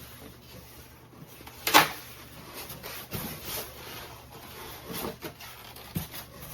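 Monitor packaging being handled and pulled apart: rubbing and scraping with a few light knocks, the sharpest about two seconds in.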